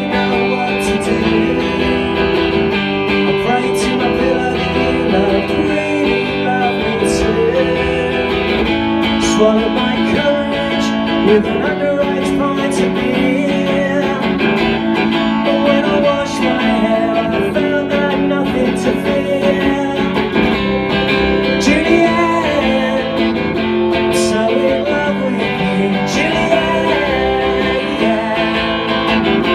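Electric guitar strummed live through an amplifier, with a man singing over it.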